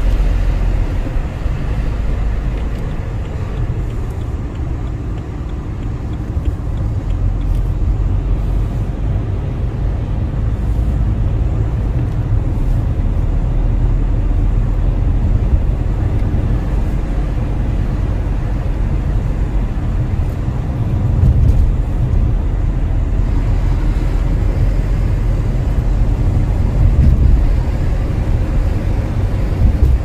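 Inside the cabin of a moving BMW car: a steady low rumble of engine and tyre road noise while driving, with no belt squeal to be heard.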